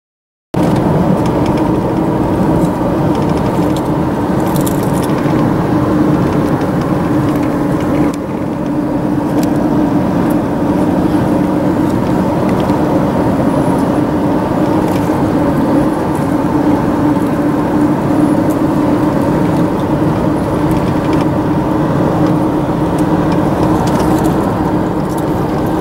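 Steady road and engine noise of a car driving at speed, heard from inside the cabin, with a constant low hum.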